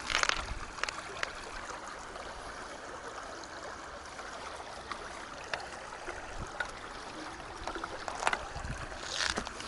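Shallow rocky river running over stones: a steady rush of flowing water, with a few brief sharp knocks, the loudest right at the start.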